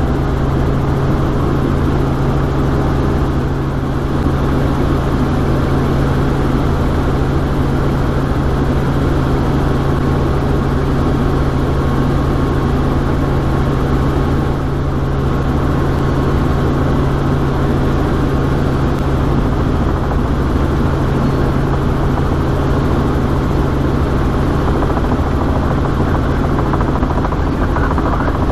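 Robinson R44 helicopter in cruise flight, heard from inside the cabin: a loud, steady drone of the piston engine and rotors with a constant low hum.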